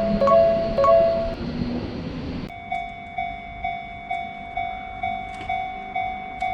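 Japanese railroad crossing warning bells ringing. At first a two-tone bell alternates over the rumble of a passing train. About two and a half seconds in it switches abruptly to another crossing's bell, a single tone ringing about twice a second.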